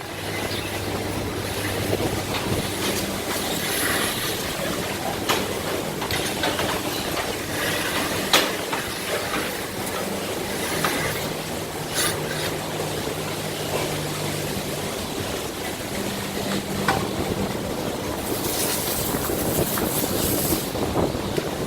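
Rotary milking parlour running: a steady mechanical hum and rumble with scattered sharp clicks and clanks. A spell of hiss comes in about three quarters of the way through.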